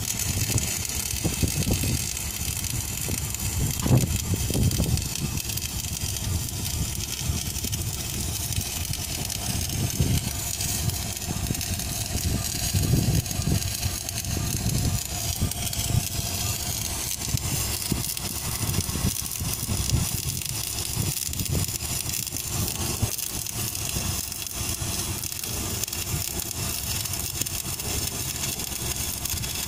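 Wire-feed welding arc (GMAW or FCAW) of a magnetic-track automatic pipeline welding carriage, crackling and hissing steadily as it runs a weld around the pipe joint, over an uneven low rumble.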